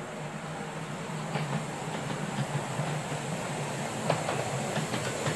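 Miniature railway train running on its track, a low rumble with irregular clicks of wheels over the rail joints, getting gradually louder as it approaches.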